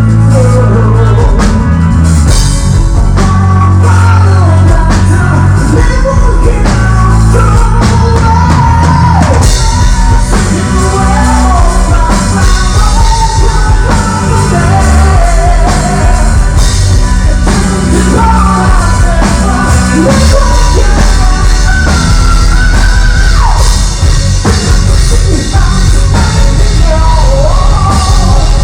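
Loud rock music: a singer's melody over a drum kit and bass, with no break.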